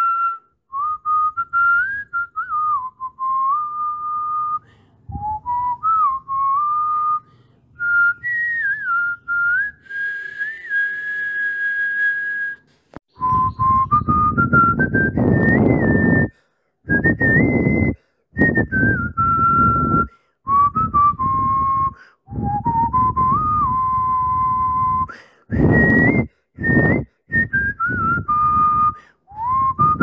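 Whistled tune, a single clear melody stepping and gliding up and down in short phrases, laid over the picture as background music. From about halfway through, a fuller, rougher accompaniment starts and stops along with each phrase.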